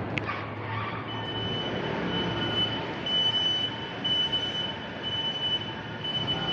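City street traffic noise with a steady high-pitched whine that comes in about a second in and holds, after a sharp click at the start.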